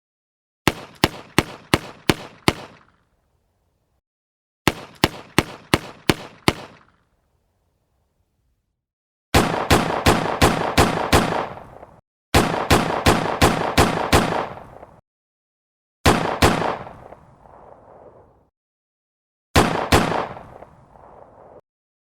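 Pistol shots fired in strings, with silence between them: four rapid strings of about six shots each, roughly three a second, then two pairs of shots. The later strings have a longer echoing tail after each shot.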